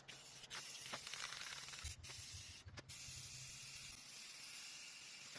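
Aerosol spray paint can hissing in steady passes as a coat of paint goes onto wood, cutting off briefly twice, about two and three seconds in, as the nozzle is released.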